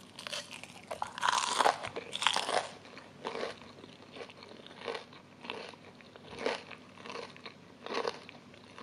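Someone chewing a bite of crisp fried king oyster mushroom wrapped in rice paper. The crust crunches, thickly for the first couple of seconds and then in single chews every second or so.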